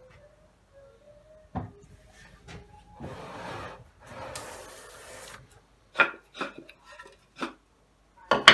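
Hand woodworking: two long rasping strokes of a tool across wood, about a second each, then a series of sharp wooden knocks, the loudest near the end.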